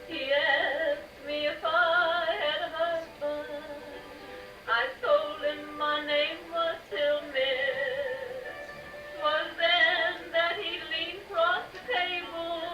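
Music with a singing voice that wavers in pitch over a sustained instrumental accompaniment.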